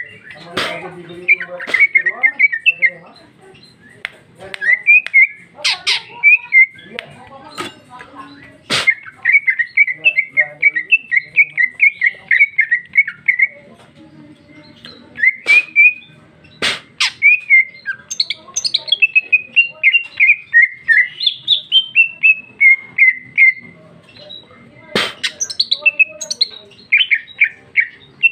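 Female greater green leafbird (cucak ijo) singing: long phrases of rapid, short chirping notes, many falling in pitch, broken by brief pauses. A few sharp clicks fall between the notes.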